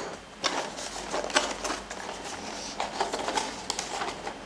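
Packaging of a boxed desktop CPU being handled and unpacked: a busy run of irregular clicks, taps and crinkly rustles of cardboard and plastic.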